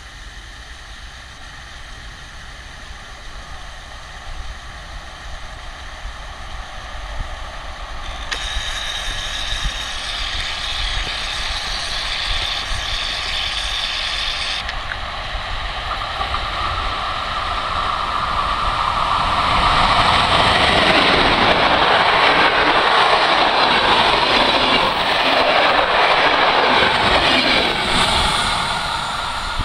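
Passenger express behind a PKP EP09 electric locomotive passing at speed: the rumble and rail noise of the wheels grow louder from about halfway in, are at their loudest for several seconds, and begin to fade near the end as the last coach goes by. Earlier a steady high whine is heard for several seconds over wind noise.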